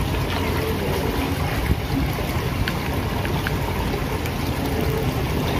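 Steady wind noise rumbling on the microphone, with a few faint distant voices and light clicks.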